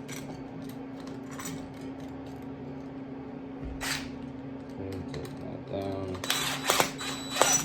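Scattered clicks and light rattles of small hard objects being handled, growing into a quick run of clicks near the end, over a steady low hum.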